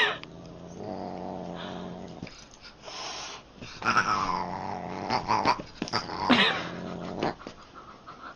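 A pet animal growling low, then giving a longer cry that dips and rises in pitch and a short sharp cry.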